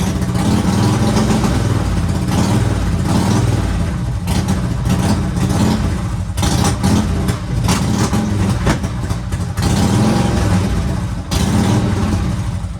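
Harley-Davidson Twin Cam 96 V-twin running on its first start after a cam chest rebuild, being revved in repeated throttle blips that swell and drop every second or two.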